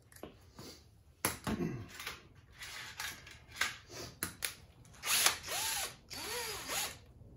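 Cordless drill run in short trigger bursts, its motor whining up and winding down several times, mixed with clicks and clatter of the tool being handled.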